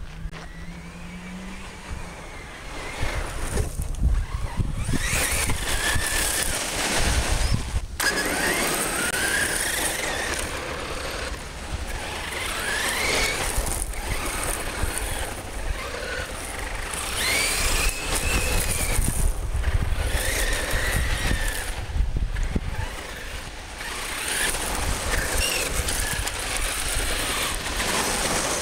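Team Associated Rival electric RC monster truck, with a brushless motor on 6S, driving hard on gravel. The motor and drivetrain give a whine that rises and falls in pitch with the throttle, over the crunch and spray of gravel under the tyres.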